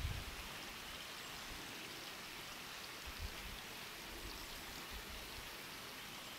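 Faint, steady rushing hiss of outdoor forest ambience, with a couple of soft low bumps on the microphone near the start and about three seconds in.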